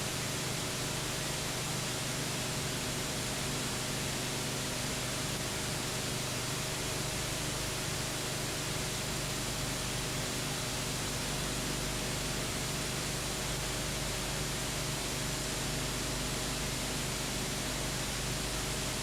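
Steady hiss with a low, unchanging hum and no other sound: the empty soundtrack of a silent cine-film transfer.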